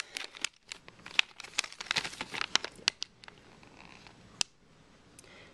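Crinkling of a plastic Mega Bloks blind bag handled in the fingers, a dense run of crackles for about three seconds, then quieter, with one sharp crackle near the end.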